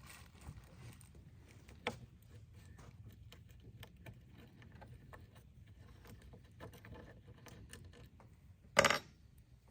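Light clicks and taps of hand tools and metal bike parts being handled during repair work, with one louder knock near the end.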